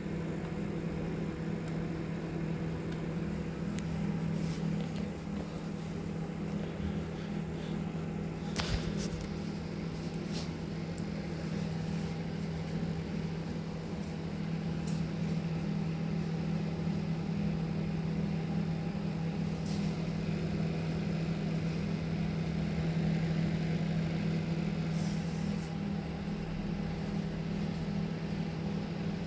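Microwave oven running on high with a steady low hum while it heats a bag of microwave popcorn, with a few faint clicks.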